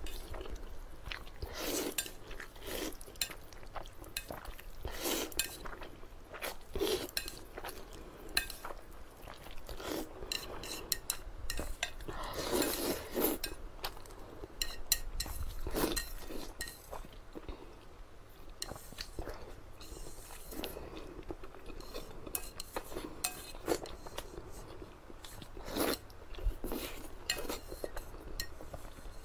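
Close-miked eating of spicy instant noodles: bites and chewing, with utensils clinking against the dish now and then.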